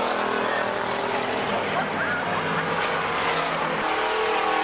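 Stock car engines running at a speedway, loud and steady, with people's voices mixed in. The engine sound changes abruptly a little before the end.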